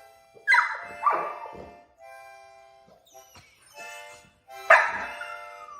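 Dog barking twice in quick succession, then music with held notes. Near the end a louder bark trails off into a falling howl-like tone.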